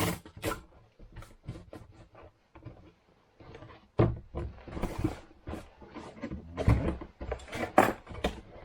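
Cardboard shipping box and packing material being handled: a run of rustles, scrapes and knocks, the sharpest about four, seven and eight seconds in.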